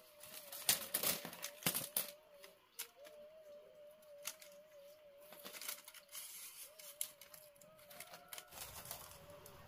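Dry split bamboo strips clicking, knocking and scraping against each other as they are picked up and laid out by hand. The knocks are loudest and most frequent in the first two seconds.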